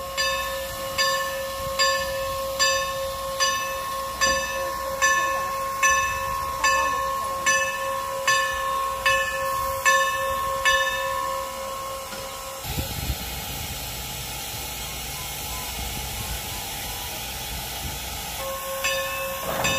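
Steam locomotive No. 475's bell ringing in steady strokes, a little more than one a second. About two-thirds of the way through, the bell stops and a loud hiss of steam runs for several seconds. The bell starts ringing again near the end.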